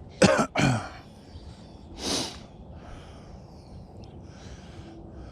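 A man's two short, loud throat sounds in quick succession near the start, the second dropping in pitch, then one breathy snort about two seconds in.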